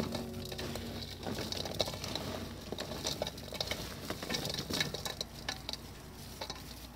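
Gloved hands tossing and mixing chopped, salted raw fish in a stainless steel bowl: a continuous wet, crackly rustle with many scattered clicks.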